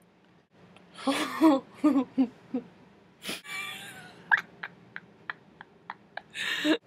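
A woman's mouth and throat sounds. After a quiet second comes a quick run of short pitched vocal sounds, then a sharp click and a breathy sound. A string of small mouth clicks follows at about three a second, then a short breathy burst near the end.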